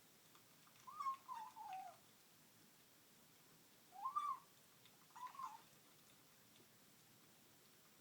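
Domestic cat making little mewing sounds while eating. There is a wavering call that falls in pitch about a second in, then two shorter calls at about four and five seconds.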